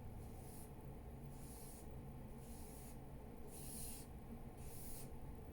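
Soft, faint strokes of a 1-inch flat paintbrush on canvas, a short scratchy swish about once a second, five times, as the brush is worked on lightly to lay in a rain effect.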